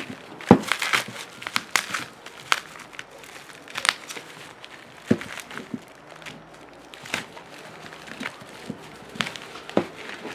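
Bubble wrap and plastic film crinkling and crackling as hands pull them off a pack of four butane gas canisters, in irregular sharp snaps.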